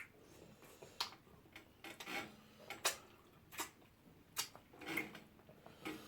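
Close-up eating sounds of a meal of starch and pepper soup eaten by hand: a string of short, sharp clicks and smacks, roughly one a second.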